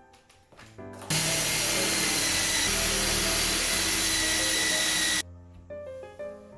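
DeWalt cordless drill running against a wall for about four seconds, with a steady whine. It starts about a second in and cuts off suddenly. Soft piano music plays before and after it.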